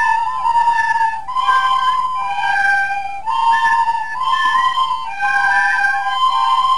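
Music: a flute-like melody of held notes, changing pitch every half second or so.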